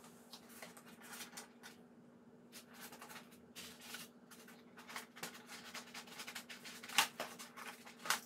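Handling noise as model train cars are lifted out of and set back into a packaging insert tray: rustling with small clicks and taps, and two sharper knocks near the end. A faint steady hum runs underneath.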